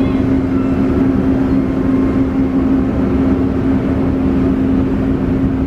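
Ferry's engines running steadily under way: a loud, low drone with a steady hum.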